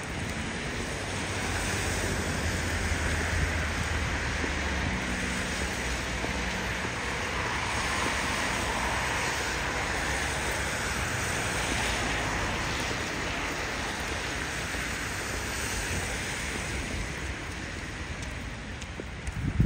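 Steady outdoor city ambience: a wash of traffic noise with wind on the microphone. A low vehicle rumble passes in the first few seconds.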